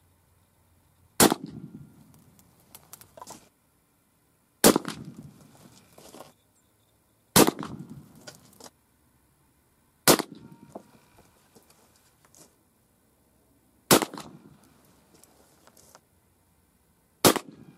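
Six shots from a .50 caliber muzzleloading rifle loaded with Pyrodex, about three seconds apart. Each is a sharp report followed by a rumbling echo that dies away over a second or two.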